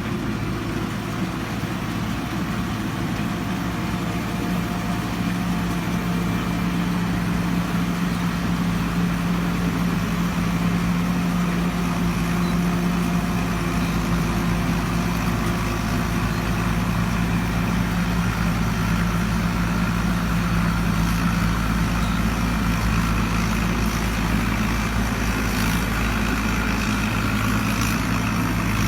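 Combine harvester's diesel engine running steadily, a constant low drone at an even pitch.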